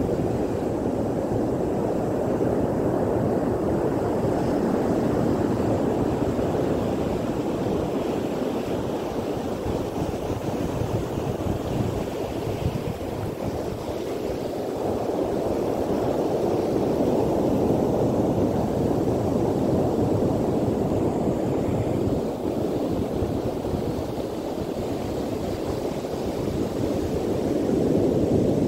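Steady rushing surf on a sandy beach, slowly swelling and easing, mixed with wind on the microphone.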